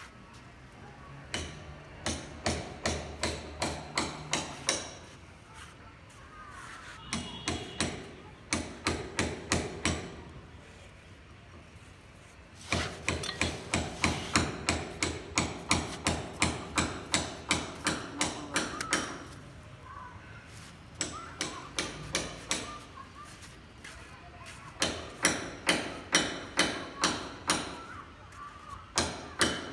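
Repeated hammer blows in runs of several seconds, about three strikes a second, stopping and starting again after short pauses.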